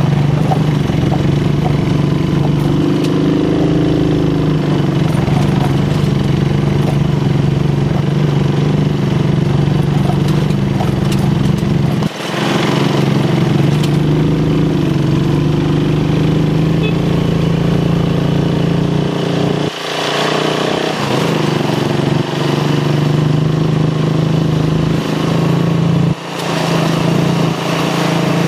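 Motorcycle engine running steadily under way, with the engine note dropping briefly three times, about twelve, twenty and twenty-six seconds in.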